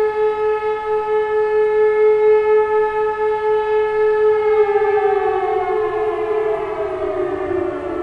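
Old WWII Elektror L1137/1237 electromechanical siren's high-tone unit (about 420 Hz, nine ports), heard with an E57 siren, holding a steady wail, then cut off about four seconds in and winding down with a steadily falling pitch. This is the end of one blast of the fire-alarm signal that calls out the fire brigade.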